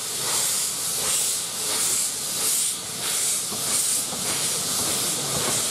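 Narrow-gauge steam locomotive working a passenger train away, its steam hissing in rhythmic pulses about two a second.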